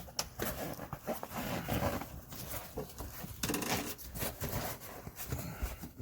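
Irregular rustling, scraping and small knocks of a rubber sleeper boot being handled and folded inward by hand.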